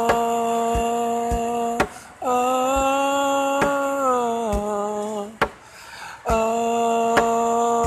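A man singing long held notes without clear words, pausing twice for breath, while knocking a steady beat with his knuckles on a hard surface, roughly one knock every three-quarters of a second.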